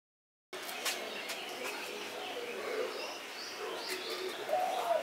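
Birds calling in the background, starting about half a second in, with a few light clicks.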